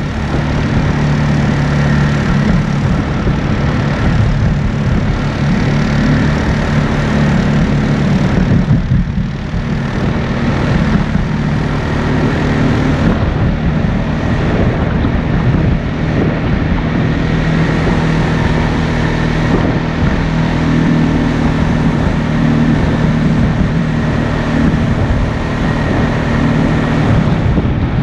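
ATV engine running steadily while the quad is ridden along a sandy dirt trail, with a short dip in level about nine seconds in.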